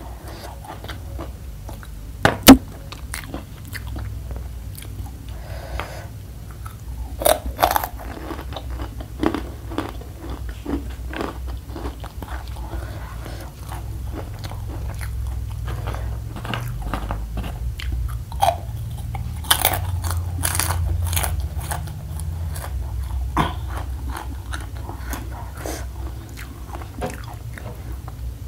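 Close-up biting and chewing of crunchy, spicy macaroni snack pieces: a run of sharp crunches and crackles as each piece is bitten and chewed. One very loud crack comes about two and a half seconds in.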